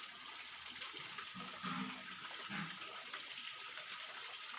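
Steady rushing and splashing of water, with two brief, slightly louder low sounds in the middle.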